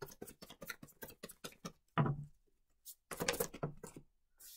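Tarot cards being shuffled by hand in quick even flicks, about seven a second, then a single thump about two seconds in and another brief burst of card noise about three seconds in as a card is drawn and laid down.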